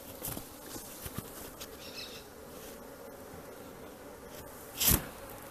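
A colony of honey bees buzzing steadily, with a few light clicks and a single sharp thump about five seconds in.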